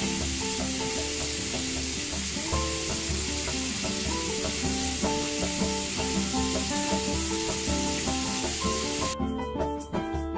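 Background music, a melody of held electronic-keyboard notes, over a steady hiss that cuts off suddenly about nine seconds in.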